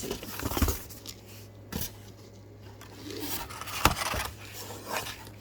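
Unboxing handling noise: packaging and items from the box being scraped, rubbed and rustled, with several sharp knocks, the loudest about four seconds in.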